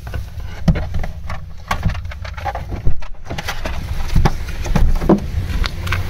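Car on the move: a steady low rumble of engine and road, with irregular knocks and rattles. The loudest is a sharp knock about three seconds in.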